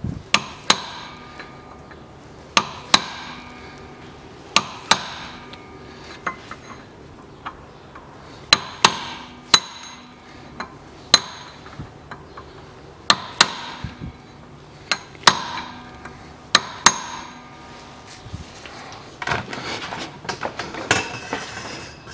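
Hammer blows on a steel bolt used as a drift, knocking the propshaft flange off the Haldex coupling. The blows are sharp and metallic, often in pairs a fraction of a second apart, and each rings briefly. Near the end they give way to a scraping, rattling clatter.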